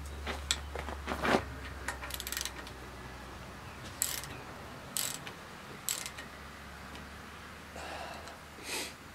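Hand socket ratchet wrench clicking in short, irregular bursts with pauses between, as bolts clamping glued stone pieces are snugged up a fraction at a time.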